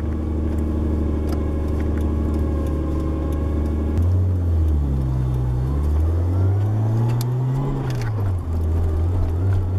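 Nissan RB20DET turbocharged inline-six heard from inside the 240SX's cabin, running steadily at first. About four seconds in the revs jump and climb as the car pulls, then drop sharply at a gear change near eight seconds before settling steady again.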